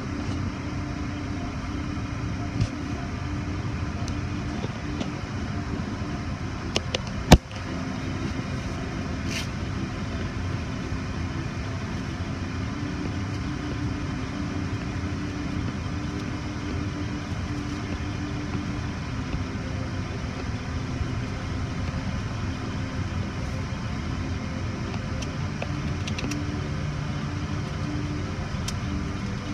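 Car idling in a slow queue, heard from inside the cabin as a steady low hum. A single sharp click about seven seconds in.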